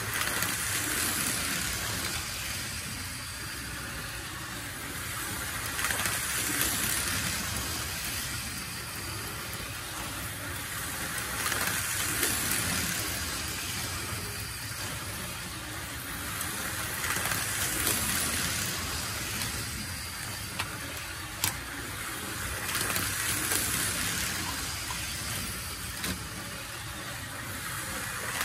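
Small electric motors of a Tyco HO-scale train and slot car running around the layout: a steady whirring hiss of motors and wheels on track that swells and fades about every six seconds as they pass by, with a couple of sharp clicks in the last third.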